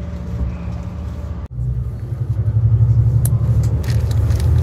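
Bus engine and road noise heard from inside the passenger cabin, a steady low rumble. It cuts out for an instant about a second and a half in, then comes back louder, with a few light rattles near the end.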